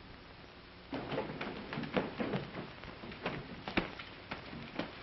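Irregular soft knocks and rustles, starting about a second in, over the steady hiss of an old film soundtrack.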